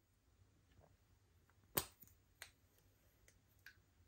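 A single sharp click a little under two seconds in, followed by a smaller click and a few faint ticks, over near silence.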